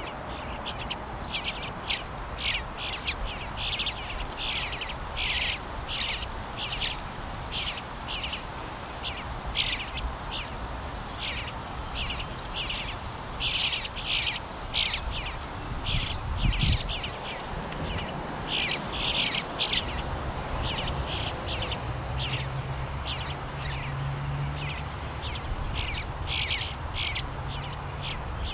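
Bluebird fledglings begging: short, harsh calls repeated over and over in quick runs while the adult female feeds them.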